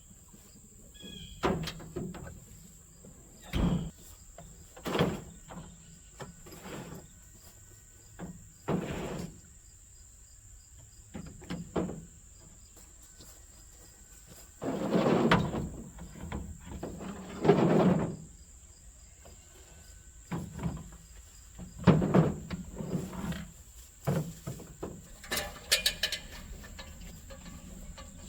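A vehicle driving over rough ground, with irregular knocks, jolts and rattles over a low running hum. Behind it runs a steady high-pitched insect drone.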